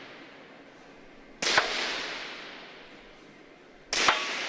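Two .22 free pistol shots about two and a half seconds apart, each a sharp crack followed by a long fading echo.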